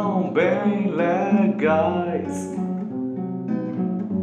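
Music: a man singing the last line of a children's song over acoustic guitar strumming. The voice stops about two and a half seconds in, and the guitar strums on alone.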